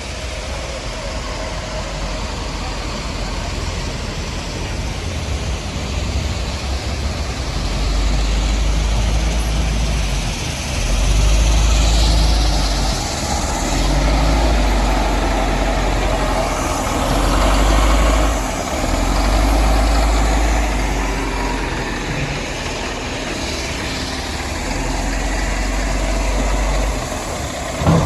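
Heavy earthmoving machine's engine running with a deep rumble that swells and eases every few seconds as the load changes.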